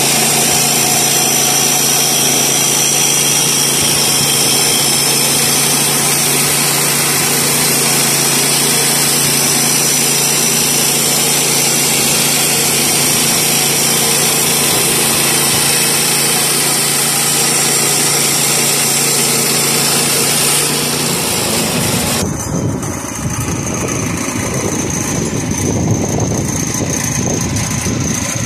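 Woodland Mills HM122 bandsaw mill's 7 hp gasoline engine running steadily under load while the band blade saws through a sycamore cant. About 21 seconds in, the steady engine-and-blade sound stops abruptly and a rougher, uneven noise takes over.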